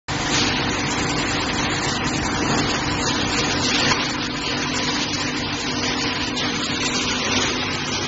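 Steady machinery noise from an ABS plastic sheet extrusion line: a constant hum with a few steady tones under an even hiss.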